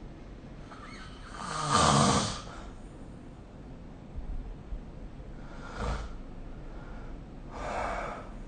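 A sleeping person snoring: one loud snore about a second and a half in, then two shorter, fainter breaths, one around six seconds and one near the end.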